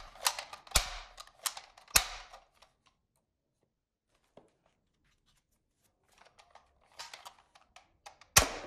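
Hard plastic clicks and rattles from a toy revolver being handled: about four sharp clicks in the first two seconds, a near-silent gap, then more clicks near the end.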